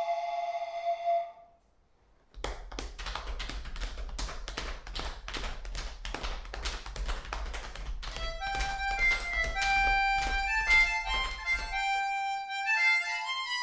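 Music: a held reedy note that stops about a second in, a short pause, then a fast, even rhythm of sharp strokes. A melody of reedy, harmonica-like notes joins about halfway through and carries on after the rhythm stops.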